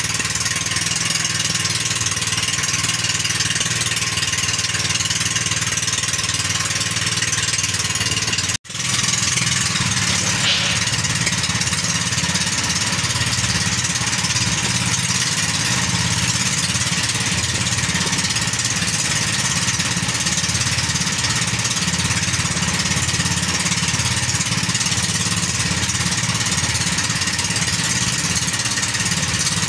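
Small fishing boat's engine running steadily at a constant speed; the sound drops out for an instant about eight and a half seconds in.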